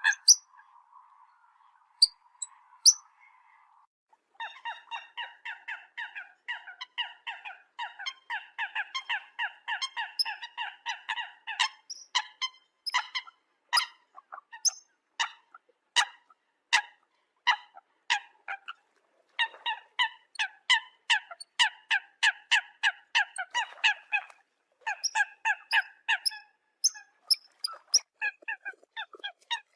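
Eurasian coot calls from a hunting lure recording. Short honking calls come several times a second in long runs, with a brief break about two-thirds of the way through. A faint steady hum sits under the first few seconds.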